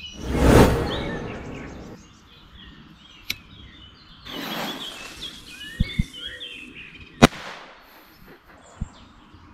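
Small birds chirping and twittering. Two swells of rushing noise come through, a loud one about half a second in and a weaker one a few seconds later, along with several sharp clicks.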